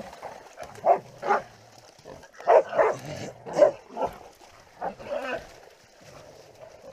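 Catch dogs holding a caught wild hog, barking and yelping in short, irregular bursts.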